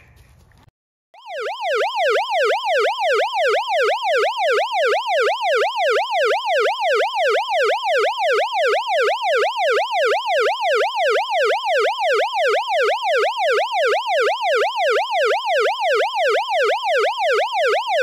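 Ambulance siren in a fast yelp, its pitch rising and falling about three times a second. It starts about a second in and keeps going without a break.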